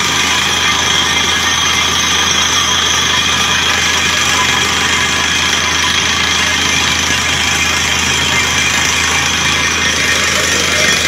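Truck-mounted DTH water well drilling rig running at full work, a loud steady din of engine and machinery. Compressed air blows the rock cuttings up out of the borehole as dust, adding a strong even hiss.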